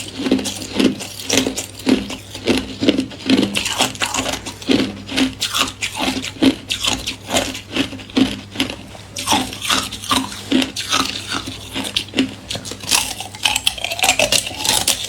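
Close-up crunching of thin ice being bitten and chewed: sharp, crackly crunches in a steady chewing rhythm of about two a second.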